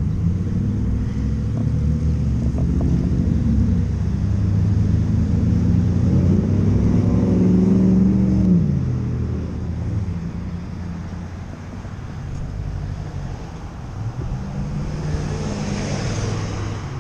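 Road traffic passing close through an intersection: car and truck engines accelerating by. The loudest vehicle passes about eight seconds in, its engine pitch dropping as it goes by, and near the end a pickup truck crosses close in front with a rush of tyre noise.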